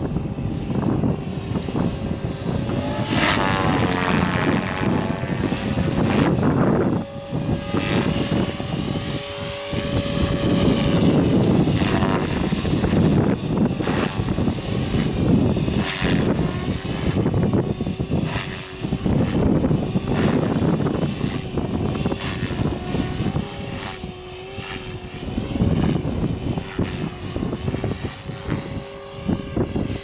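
Align T-Rex 500 electric RC helicopter flying, its rotor and motor making a steady whine that shifts slightly in pitch as it manoeuvres. Gusts of wind buffet the microphone throughout, swelling and easing every few seconds.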